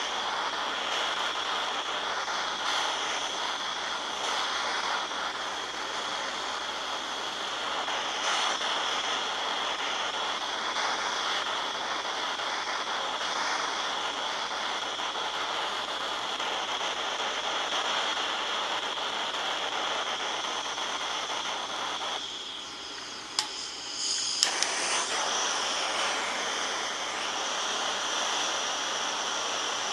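Gas soldering torch flame hissing steadily while heating a cracked radiator neck for soldering. About 22 seconds in the hiss drops away for a couple of seconds, with a sharp click, then comes back.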